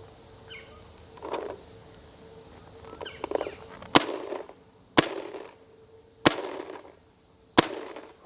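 Compressed-air paintball marker firing four sharp single shots, spaced about one to one and a half seconds apart, each with a short fading tail.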